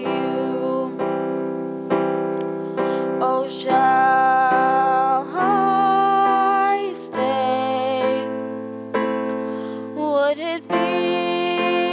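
Slow piano music with long sustained notes that change every second or two.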